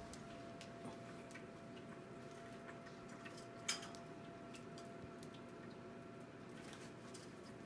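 Faint dripping and scattered light ticks from a small electric bird-bath water fountain running, over a faint steady hum. One sharper click about halfway through is the loudest sound.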